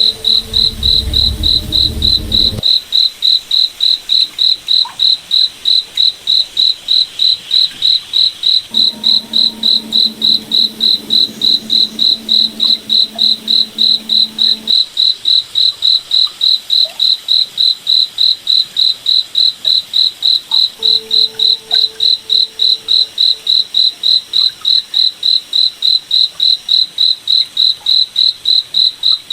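Cricket chirping steadily: a high, evenly repeated pulse, about three chirps a second. A faint low hum comes and goes underneath.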